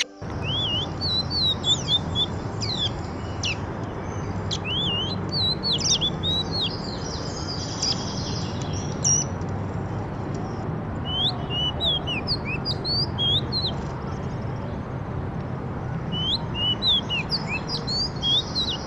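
A flock of small birds chattering: quick, sharp chirps in busy clusters with short lulls between them, over a steady low rumble.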